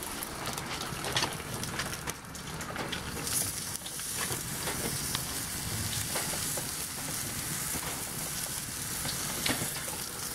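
Zucchini halves sizzling on a hot, oiled salt block over a gas grill: a steady frying hiss with scattered small crackles, growing louder a few seconds in.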